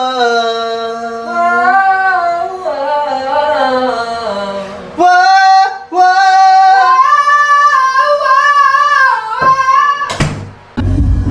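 A young man singing high, long-held notes with a wide vibrato. The voice breaks off briefly about five seconds in, and near the end it cuts off suddenly and is replaced by a bass-heavy sound.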